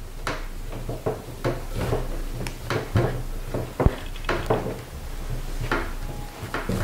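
Hands kneading crumbly flour-and-egg dough in a large porcelain bowl, pressing and squeezing it in irregular soft strokes and scrapes against the bowl. A single sharp knock about four seconds in is the loudest sound.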